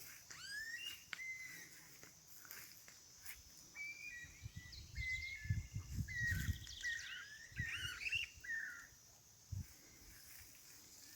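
Several small birds chirping and whistling in short rising and falling notes, over a steady high insect-like hum. A few low bumps are heard in the middle.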